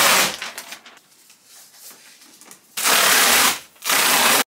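Flat-pack cardboard packaging being pulled apart and scraped as the boards come out of the box. It starts with a loud rustling scrape, then quieter rustles and small knocks, then two more loud scrapes near the end before the sound cuts off abruptly.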